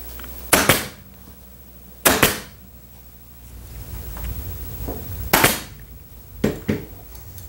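BeA pneumatic upholstery staple gun firing staples, about five sharp shots a second or two apart.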